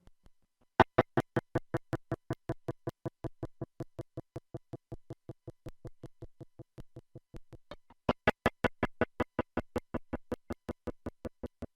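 Electric guitar played through effects pedals: a struck note or chord chopped into rapid, even pulses of about six or seven a second, fading away. It is struck again about eight seconds in and chops and fades the same way.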